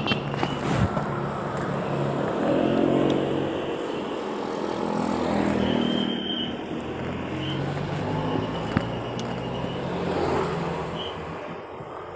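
Motor traffic passing close by: car and motorbike engines rising and falling in pitch as each goes past, with a few short high-pitched tones in the second half.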